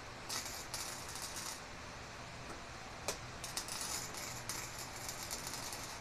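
Electric arc welding: the arc crackles in short bursts in the first second and a half, a sharp click a little after halfway, then crackles almost without a break from about halfway through as the weld runs.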